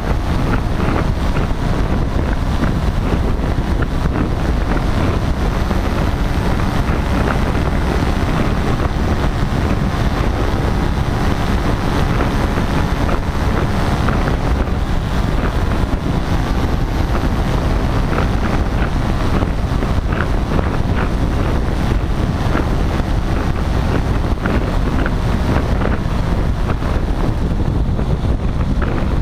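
Paramotor engine and propeller running steadily in flight, mixed with heavy wind noise on the microphone.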